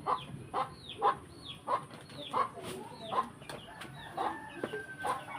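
Chickens clucking: short calls repeating about every half second to a second.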